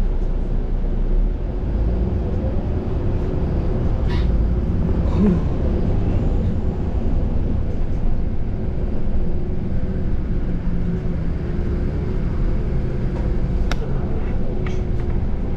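City bus riding along, heard from inside: a steady low engine and road rumble with a faint hum, and a couple of short rattles or clicks.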